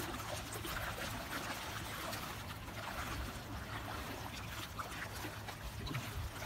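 Sea water lapping and splashing against breakwater rocks: a steady wash with many small splashes.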